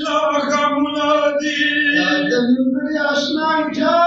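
A reciter's voice chanting a Pashto noha, a Shia mourning lament, in long held melodic lines.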